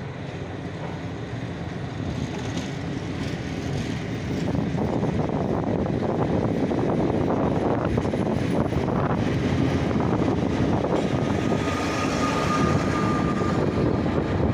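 Passenger train pulling out of a station, heard from on board: a steady rumble of wheels on rail that grows louder over the first few seconds as the train picks up speed.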